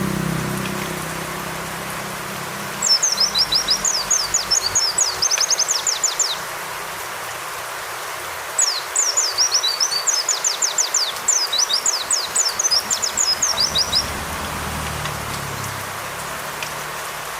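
White-eye (pleci) singing two long bouts of rapid, high, falling chirps, the first about three seconds and the second about five, with a pause between them. A steady rain hiss runs underneath.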